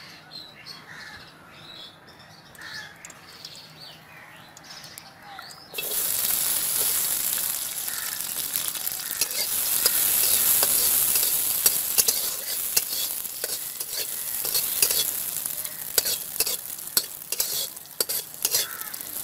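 Cashew nuts frying in hot ghee in a metal kadai: a loud sizzle starts suddenly about six seconds in, with a metal spatula scraping and clicking against the pan as they are stirred. Before that, birds call faintly.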